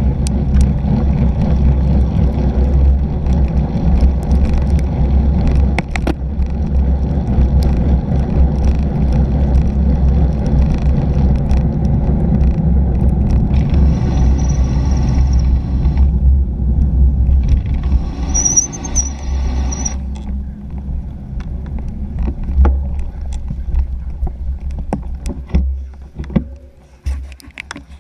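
Wind buffeting a bike-mounted GoPro Hero 3 and cyclocross tyres rolling on pavement at racing speed: a loud, steady low rumble that eases after about twenty seconds and dies away near the end as the bike slows.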